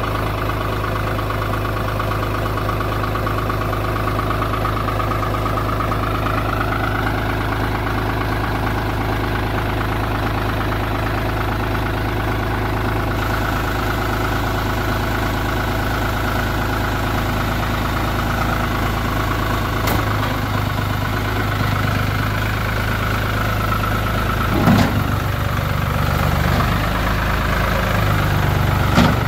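Old Ford farm tractor's engine idling steadily soon after a cold start helped by starting fluid, its note rising slightly a few seconds in. A few short knocks sound near the end.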